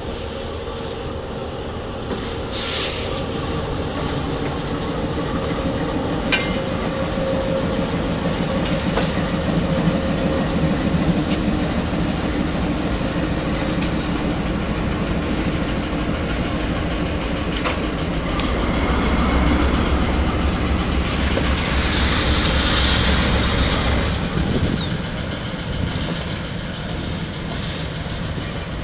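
Diesel locomotive engine running steadily while it hauls loaded flatcars slowly past, with wheels clicking over the rails. There are two short, sharp high-pitched metallic sounds within the first several seconds, and a louder stretch of deep rumble with high wheel-and-rail hiss about two-thirds of the way through.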